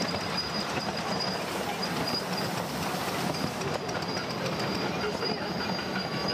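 Ride-on miniature railway train running along the track, its passenger cars rumbling and clattering steadily on the rails. A thin high whine comes and goes over it.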